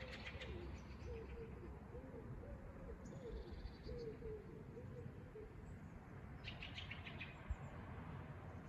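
A pigeon cooing in a run of low notes that rise and fall, for the first five seconds or so. A small bird gives two brief bursts of high chirping, one at the start and one about six and a half seconds in.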